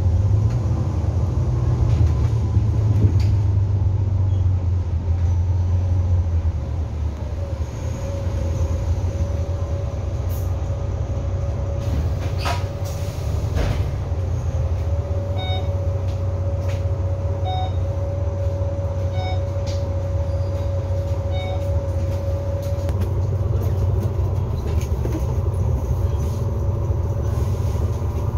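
Bus running, heard from inside the cabin: a steady low engine and road rumble with a held whine through the middle, scattered rattles and clicks, and a short run of regular beeps about once a second partway through.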